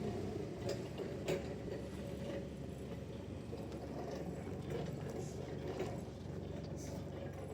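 Sawmill machinery running with a steady low hum and scattered metallic clicks and knocks; the loudest knock comes about a second in.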